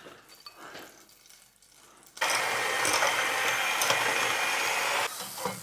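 Electric mixer beating eggs with sugar into a fluffy mass: it starts about two seconds in, runs at a steady speed for about three seconds, then cuts off.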